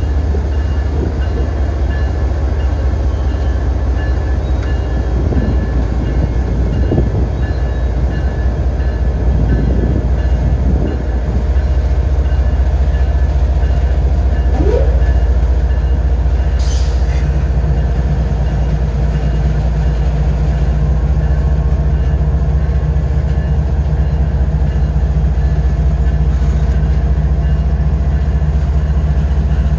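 Kansas City Southern diesel locomotive running with a deep, steady drone as it rolls slowly past. A brief rising squeal comes about fifteen seconds in.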